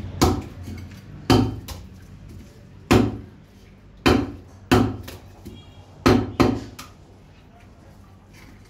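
A cleaver chopping on a wooden block: seven heavy, irregularly spaced chops, some in quick pairs, the last a little after six seconds in.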